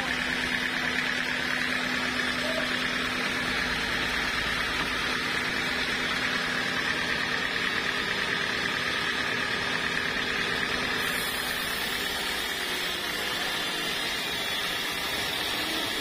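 Band sawmill running steadily, its blade ripping lengthwise through a long teak beam.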